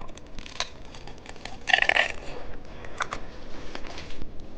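Small clicks and taps of plastic candy packaging being handled, with a short rustling burst about two seconds in.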